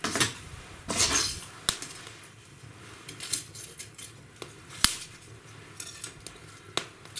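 Kindling burning in a wood fireplace: a few sharp crackling pops spaced seconds apart, with brief rustling bursts near the start and about a second in.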